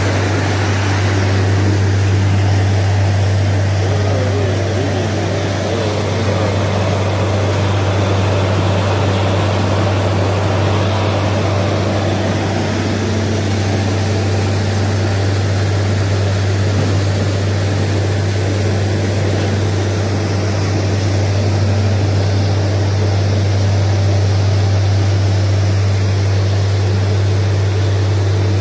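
Truck-mounted borewell drilling rig running while it drills: a loud, steady drone with a deep hum and a noisy rush as rock dust is blown out of the hole.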